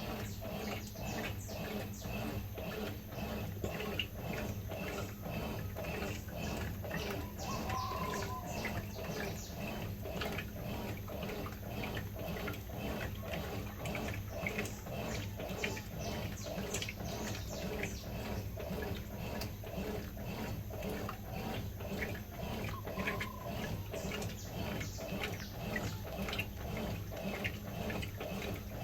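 Brastemp 11 kg top-loading washing machine running, water and clothes sloshing in an even rhythm of about two strokes a second over a low motor hum.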